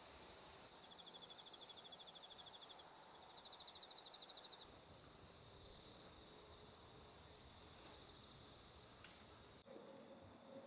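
Singing insects, crickets, in quiet outdoor ambience: a soft rapid trill, then a louder trill, followed by a higher, steady rhythmic chirping, over a constant thin high-pitched insect drone.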